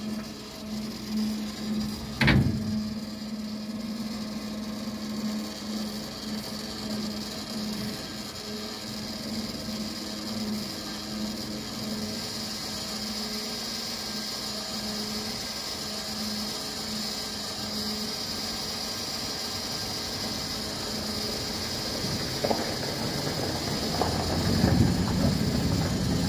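Electric fuel pump running to prime the cold diesel engine of an EMD SD38-2 locomotive: a steady hum with a high whine. There is a sharp clank about two seconds in. Near the end the hum fades and knocking and clattering take over.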